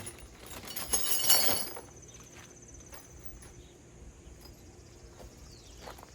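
Metal parts of a kayak rack clattering and clinking together as they are handled, loudest in a burst about a second in, followed by quieter scattered clicks. A steady high insect buzz sounds from about two seconds on.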